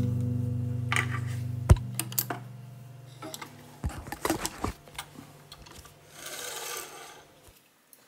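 Guitar music fading out under handling sounds from a mid-century Singer 128-clone sewing machine and a fabric test piece. There are scattered clicks and knocks, then a brief soft rustle near the end.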